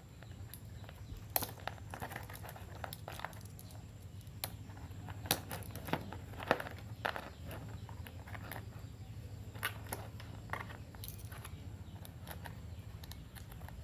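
Irregular small clicks and rustles of hands fitting spring-loaded alligator clips onto multimeter test leads and handling the cables, over a steady low hum.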